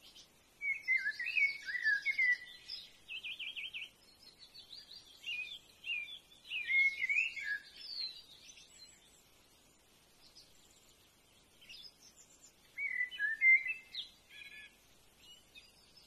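Songbirds singing varied, warbling phrases in three bouts, with a fast trill a few seconds in.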